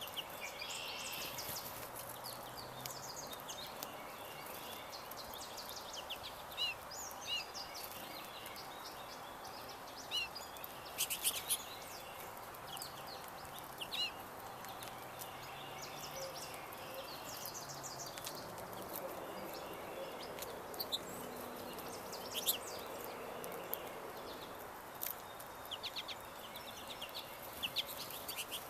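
Wild songbirds chirping and calling in short, scattered notes over a steady background hiss of outdoor noise, with a cluster of louder sharp calls about eleven seconds in.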